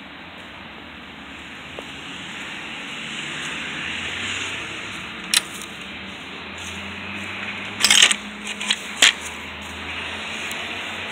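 Outdoor background noise with a low, steady motor-vehicle engine hum from about four seconds in, and a few sharp knocks, the loudest a quick cluster about eight seconds in.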